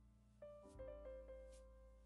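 Quiet background piano music: soft sustained notes over a low bass, with a new chord about half a second in.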